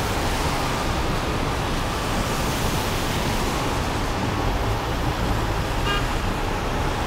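Steady rushing noise of freeway traffic on rain-wet pavement, with a low rumble underneath.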